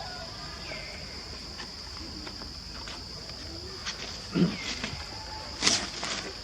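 Steady, high-pitched drone of insects, with a few faint short squeaks and two louder brief sounds in the second half: a low rising call and a short rustle or knock.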